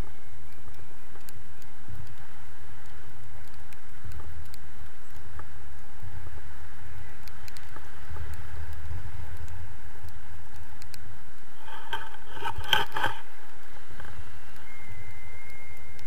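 Steady wind noise on an action camera's microphone during a tandem paraglider flight: a low rumble of airflow with a hiss above it. A brief, louder sound with several tones cuts in about twelve seconds in.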